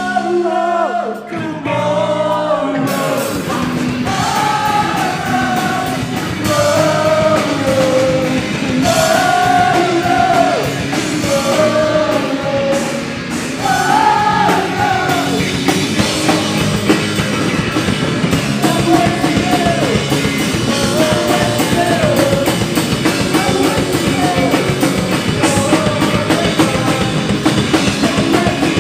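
Live pop-punk band playing: electric guitar, bass guitar and a Yamaha drum kit under a sung lead vocal. The drums and bass drop out for about three seconds at the start, leaving the voice and guitar, then the full band comes back in.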